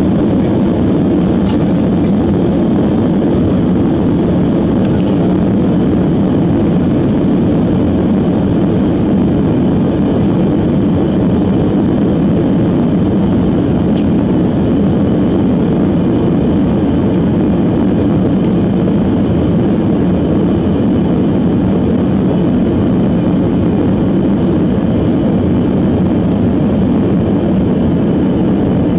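Steady cabin drone of an Airbus A330-300 airliner in flight: engine and airflow noise heard from inside the cabin, with a few faint ticks.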